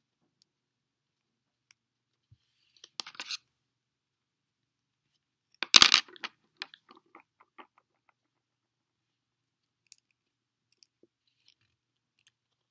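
Single-braid rope being handled and pulled through itself while an eye splice is worked: scattered faint clicks, a short crackling rustle about three seconds in, and a louder crackle about six seconds in trailing off into a few small ticks.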